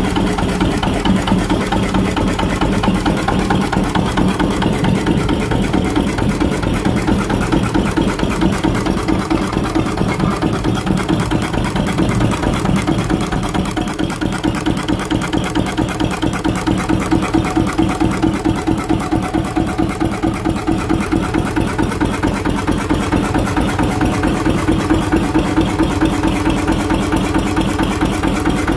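Lister CS 6 hp single-cylinder stationary diesel engine running steadily, an even, rapid beat of firing strokes that holds the same pace throughout.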